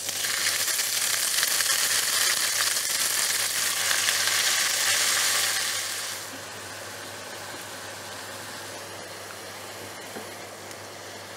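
Fresh spinach sizzling loudly in hot oil and garlic in a stainless-steel frying pan; about six seconds in the sizzle drops to a quieter hiss.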